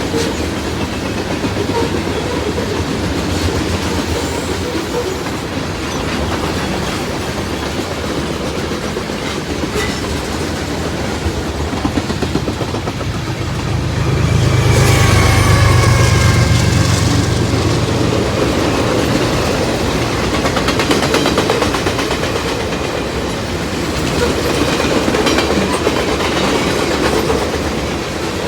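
A train rolling past at close range, its wheels clacking over the rail joints in a steady rumble. Partway through, the low rumble swells louder and a brief high-pitched whine is heard.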